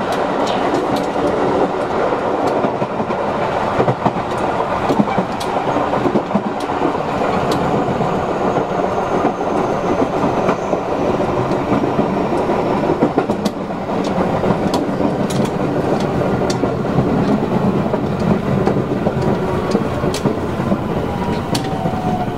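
Running sound of a JR West 223-series electric multiple unit motor car (KuMoHa 223-3009): a steady rumble of wheels and traction motors with scattered sharp rail clicks. Near the end a VVVF inverter whine falls in pitch as the train slows.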